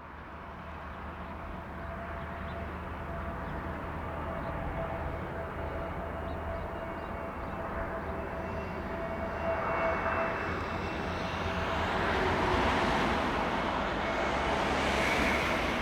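Airbus A320neo jet on landing approach: engine whine and rushing air grow steadily louder as it comes nearer, with a steady mid-pitched tone running through it.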